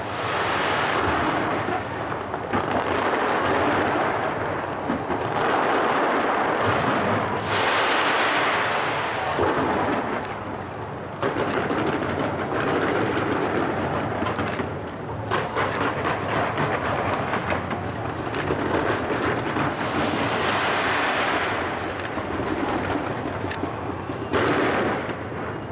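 A fireworks barrage fired from the sides of a skyscraper: a continuous run of overlapping bangs with sharp crackling, swelling and easing every few seconds.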